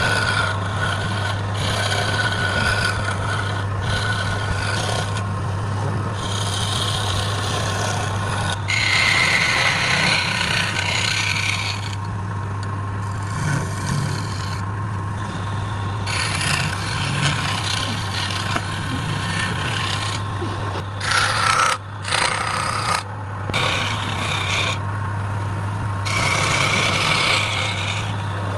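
Wood lathe running with a steady motor hum while a tool rasps against the spinning wood, the scraping swelling and easing in stretches of a few seconds and breaking off briefly a few times about 21 to 23 seconds in.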